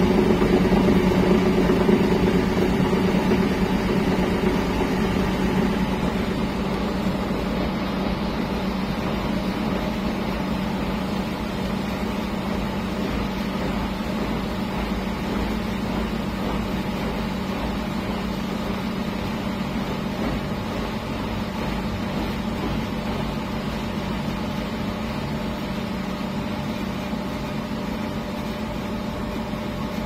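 V-Zug Adora 4 front-loading washing machine running with a steady motor hum, which grows somewhat quieter over the first several seconds and then holds even.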